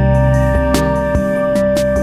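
Instrumental background music: held melody notes over a steady bass, with a light beat about every 0.4 seconds.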